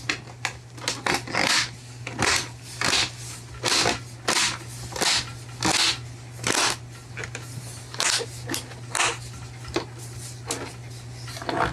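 Plastic monitor bezel being pressed down onto the frame, giving a rapid run of short plastic snaps, creaks and scrapes as its clips seat, over a steady low hum.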